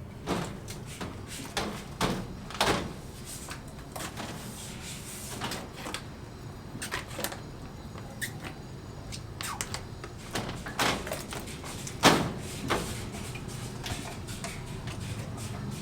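Irregular knocks and clatters, a few at a time with pauses between, the loudest about twelve seconds in.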